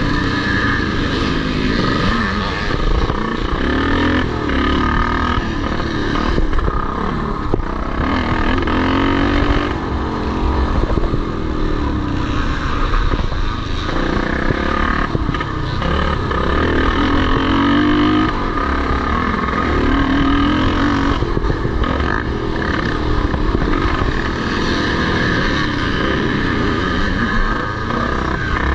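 Vintage motocross motorcycles racing, engines revving up and dropping back over and over as they ride the track.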